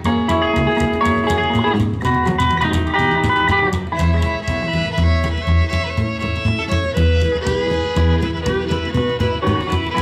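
Live country band playing an instrumental passage: a hollow-body electric guitar and a fiddle carry the tune over a steady, pulsing upright-bass beat.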